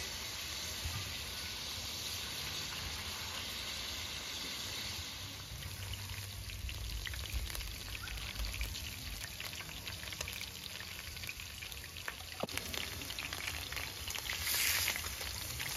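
Meat sizzling as it fries in a pan, with small pops and crackles of spitting fat. The sizzle swells briefly near the end.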